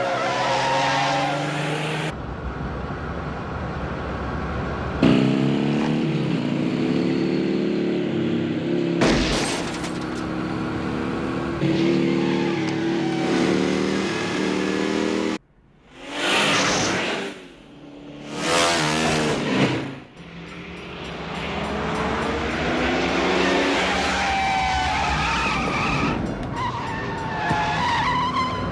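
Car-chase soundtrack: a sedan's engine running hard with repeated tyre squeals through turns, and a pursuing police motorcycle's engine. About halfway through, the sound drops out suddenly and two short loud bursts follow, each rising and falling like a fast pass-by.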